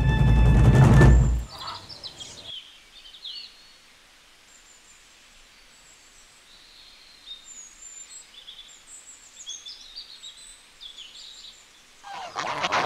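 A deep boom with a rush of noise at the start, then a quiet stretch of small birds chirping here and there. Near the end, geese and ducks break into loud honking.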